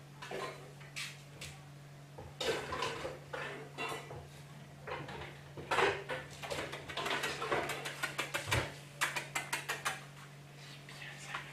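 Puppy's claws clicking and scraping on a wooden tabletop as it shifts about, with a quick run of taps about two-thirds of the way in.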